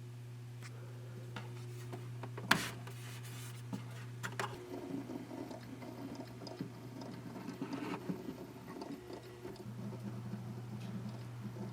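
Synology DS423+ NAS running, with its hard drives giving a steady low hum. There is a sharp knock about two and a half seconds in, then several seconds of fast, irregular ticking chatter that sounds like drive seek activity.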